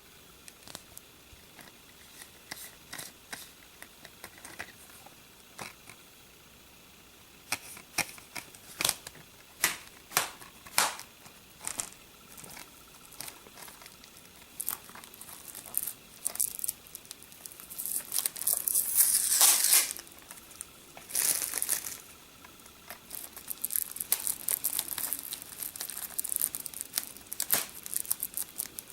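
Plastic wrapping on a DVD set being picked at and torn open by hand: scattered scratches and clicks, a loud tear about two-thirds of the way in, then steady crinkling of the loose plastic.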